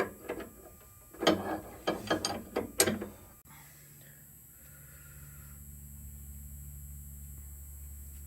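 Ratchet wrench clicking in a few quick bursts, loosening a fitting on a skid steer's hydraulics. A little after three seconds it cuts off abruptly, giving way to a steady low hum.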